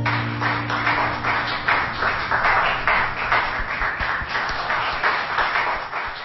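Hand clapping after a song, about three claps a second, fading away near the end.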